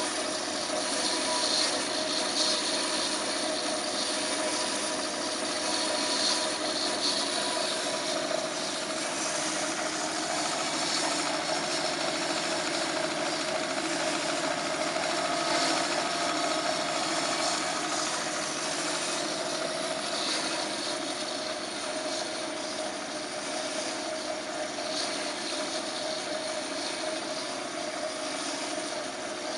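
Horizontal metal-cutting bandsaw running steadily: an even hum from the motor and belt drive, with a hiss from the moving blade.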